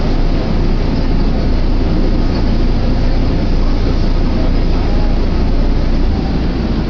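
Steady, loud rumble inside a Kobe Municipal Subway Kaigan Line linear-motor train car running between stations through the tunnel.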